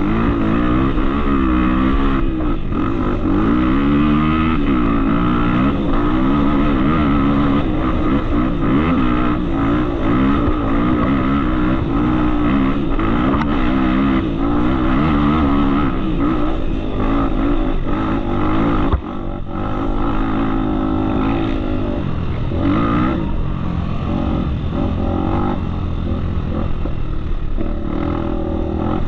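Off-road motorcycle engine running while being ridden, its pitch rising and falling with the throttle throughout, with a brief drop in loudness near the two-thirds mark.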